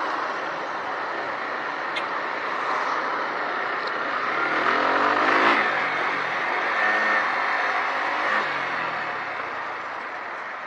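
Riding a Suzuki Gixxer 155 motorcycle, heard from the action camera: a steady rush of wind and road noise, with the single-cylinder engine's note rising and then falling about halfway through.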